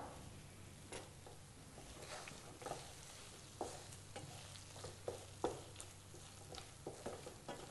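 A wooden spatula stirring a thick, mashed potato and ridge gourd curry in a nonstick pan. It makes faint, irregular scrapes and soft taps against the pan.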